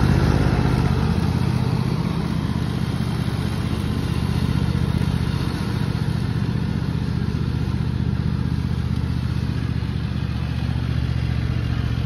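Cub Cadet XT1 riding lawn tractor's engine running steadily while mowing, loudest as it passes close at first, then a little quieter as it drives away.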